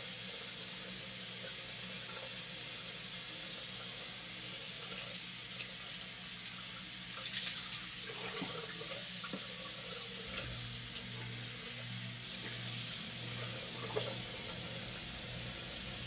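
Bathroom sink faucet running steadily into the basin, with a few small splashes around the middle as hands and a washcloth go into the water.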